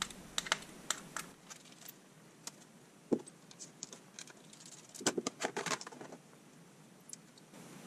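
Small metal clicks and taps as leftover screws are backed out of the perch platform with a precision screwdriver and handled, with a single knock about three seconds in and a quick run of clicks about five seconds in, as the screwdriver and loose hardware are set down.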